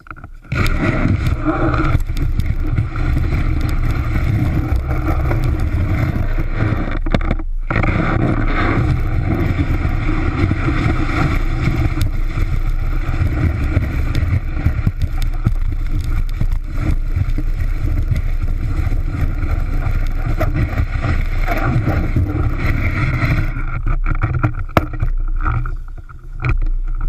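Snowboard base sliding and scraping over packed snow, a steady rough rumble with wind buffeting the board-mounted camera. It breaks off for an instant about seven and a half seconds in and turns quieter for a moment near the end.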